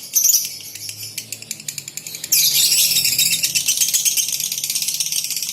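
Female lovebird in a long, rapid rattling chatter (the 'ngekek' song), getting suddenly louder about two seconds in.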